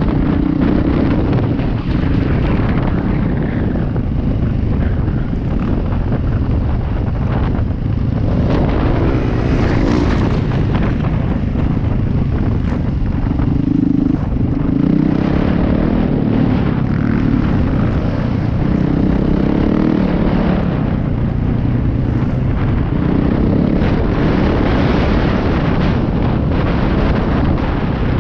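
Dirt bike engine running steadily as it is ridden, its pitch rising and falling as the throttle changes.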